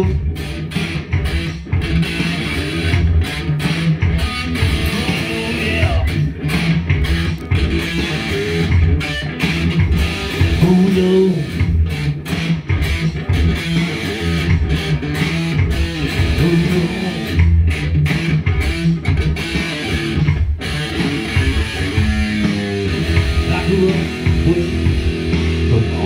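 Electric guitar played through an amplifier: a busy instrumental riff of mostly low notes, broken by short stops.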